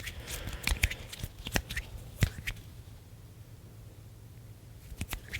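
Hand sounds close to the microphone: quick dry clicks and brushes of skin on skin, like fluttering fingers. They are dense for the first couple of seconds, with one sharper click a little after two seconds, then thin out before picking up again near the end.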